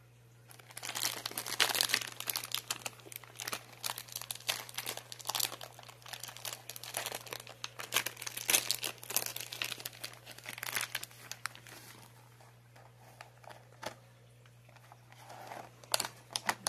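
Crinkly clear plastic wrapper being torn open and peeled off a moon cake in its plastic tray, crackling and rustling for about eleven seconds, then dying down. A few light clicks near the end.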